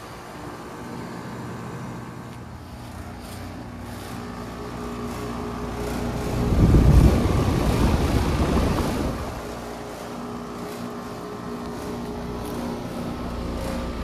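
Outdoor heat pump condensing units running: a steady compressor hum with the rushing of the condenser fan. The rushing grows louder for a few seconds around the middle, with the microphone held close over the fan.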